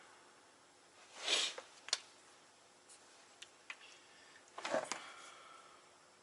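Faint shop handling noises while transmission oil lines are being connected: two short scrapes, each ending in a sharp click, with a few light ticks in between.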